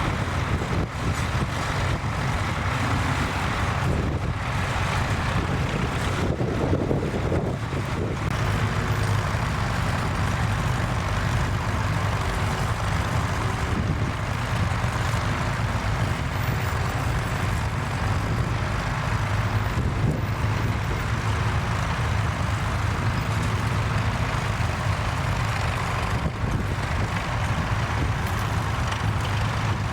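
Tractor engine running steadily with a constant low drone.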